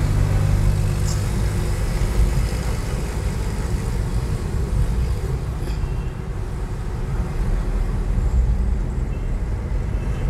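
Car driving with a window open, heard from inside the cabin: a steady engine hum and road noise, with the outside air and street coming in through the open window.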